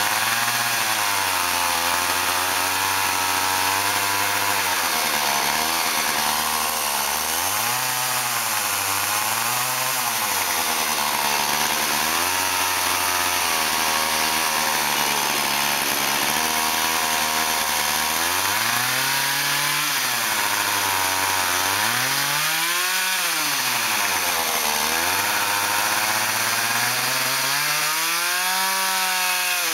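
Chainsaw carving into Western Red Cedar, its engine pitch rising and falling again and again as the cutting load changes, with several quick rev-ups and drops in the last third.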